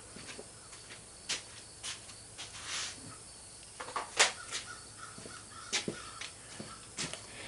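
Scattered sharp clicks and knocks of metal parts and tools being handled, the loudest about four seconds in, with a brief rushing scrape near the middle.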